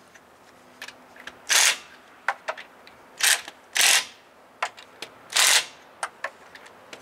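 Hand ratchet and socket snugging down a truck wheel's lug nuts: four short bursts of rapid ratchet clicking, with scattered single metallic clicks between them.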